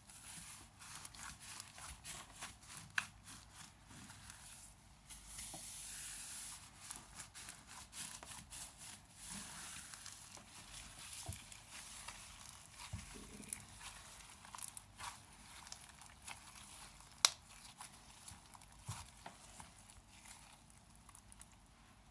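Red slime with tiny snowflake pieces worked by hand: a run of sticky clicks, small pops and crinkly crackling, with one sharper pop about two-thirds of the way through.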